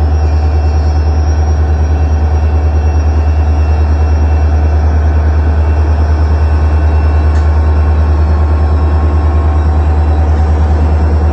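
EMD 16-645E3 turbocharged V16 diesel engine of a GP40-2 locomotive running close by with a loud, steady, deep throb, as the locomotive shoves a cut of covered hopper cars.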